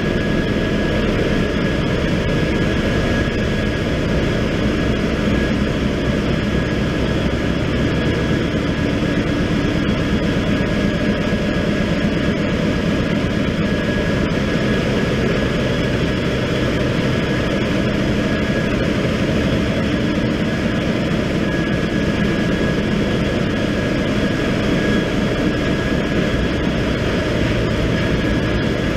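Loud, steady machinery noise of a cargo ship's engine room: the ship's diesel engines and auxiliary machinery running, a deep rumble with a thin steady whine on top.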